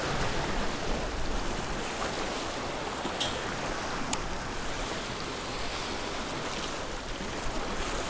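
Small waves washing and splashing against jetty rocks, a steady rushing; a couple of short clicks a few seconds in.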